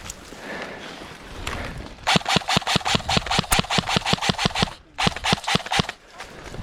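Airsoft gun firing on full auto: a long burst of rapid, evenly spaced shots starting about two seconds in, a brief pause, then a second, shorter burst.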